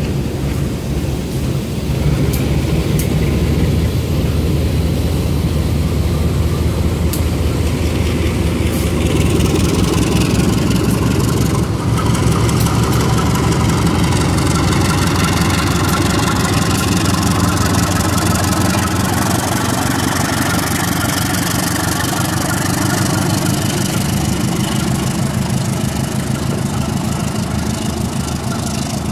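Passenger train with a diesel-electric locomotive in the consist rolling by. There is a steady low engine drone and wheels running on the rails, with a few sharp clacks early on. The engine sound grows fuller about twelve seconds in, as the locomotive passes close.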